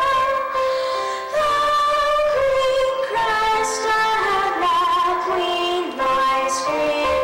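A female voice singing a melody of long held high notes, changing pitch about once a second, with a wavering vibrato on one note about five seconds in.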